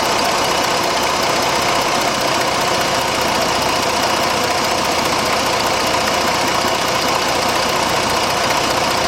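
2006 Jeep Grand Cherokee's 3.7-litre V6 running steadily at idle with an even rushing sound like escaping air over it. The engine is suspected of running poorly after a cylinder 3 misfire code.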